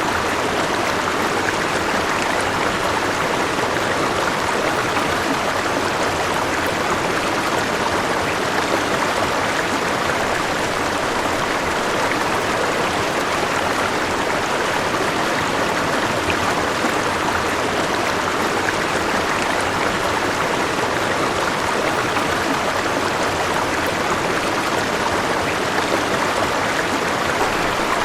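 River water flowing steadily over rocks, an even rushing and babbling with no change.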